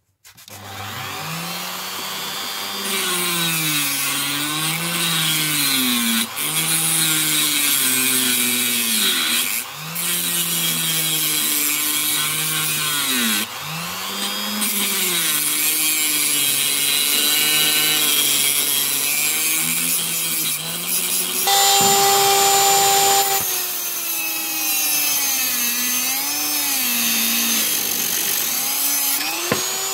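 Handheld rotary tool with a small abrasive cut-off wheel cutting a rusty steel rod, with a harsh grinding hiss. The motor's whine keeps dipping in pitch as the wheel bites and rising again as it eases off. About two-thirds of the way through it runs free for a moment at a steady, higher pitch.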